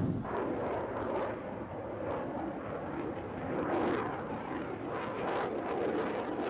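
Jet aircraft flying an aerobatic display overhead: a steady rushing engine noise that swells and fades as it passes.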